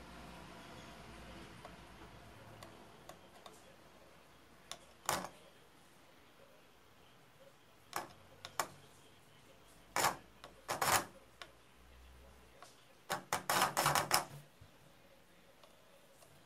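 Small DC motors on a two-wheeled robot chassis whirring in short bursts, several times with a busier cluster near the end, as a screwdriver tip bridges contacts on the motor-driver board to test it. Light ticks of the screwdriver on the board come between the bursts.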